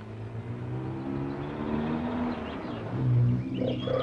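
Background film music: low held notes that shift in pitch a couple of times, loudest about three seconds in.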